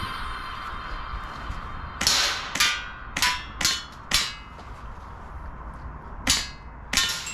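Sharp metallic clicks of an airsoft gun being dry-fired, a string of five about half a second apart, then more near the end.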